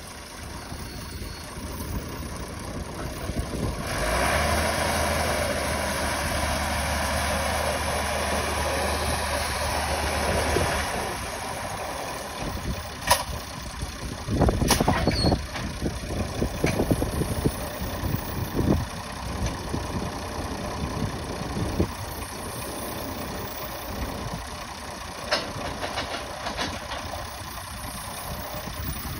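Truck-mounted drilling rig's engine running steadily; about four seconds in, the engine note rises and holds louder for about seven seconds, then drops back. Over the running engine, sharp knocks sound at irregular moments through the second half.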